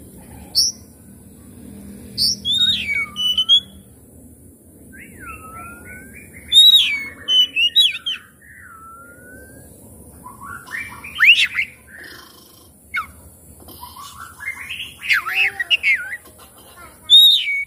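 Oriental magpie-robin singing: loud, clear whistled phrases with sliding rising and falling notes, broken by short pauses. Twice, about two-thirds of the way through and again near the end, the song turns into a run of harsher, rapid notes.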